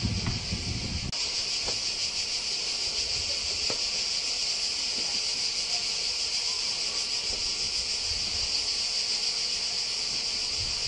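Steady chorus of cicadas, one continuous high shrill without breaks. A brief low rumble in the first second.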